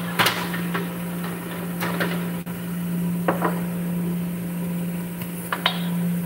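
Steady low electrical hum of a running kitchen appliance, with about half a dozen light knocks and clicks of kitchenware scattered through it.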